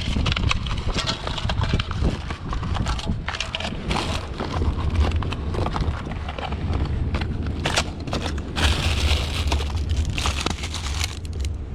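Rubbish being rummaged through by hand: irregular crackling, crunching and clattering, louder for a few seconds near the end, over a steady low rumble.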